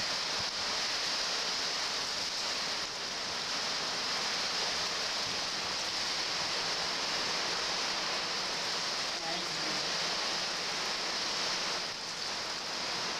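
Steady, even hiss of hurricane rain and wind, loudest in the high register.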